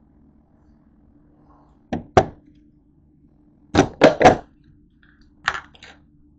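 Kitchen items being handled and set down on a countertop: two sharp knocks about two seconds in, a quick run of three around four seconds in, and one more near the end, over a faint steady hum.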